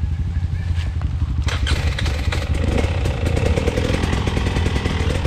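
Off-road dirt bike engine running, growing louder and harsher about a second and a half in as it is ridden on.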